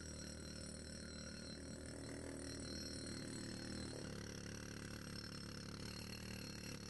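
Power tool cutting out old mortar joints in brick, its sound slowed down by the slow-motion playback into a low, rough drone. The pitch of the drone shifts about four seconds in.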